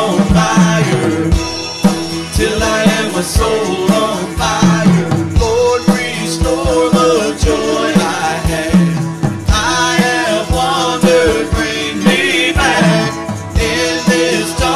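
Live worship band music with a country feel: a steady drum beat under guitars and held chords, with some singing in the mix.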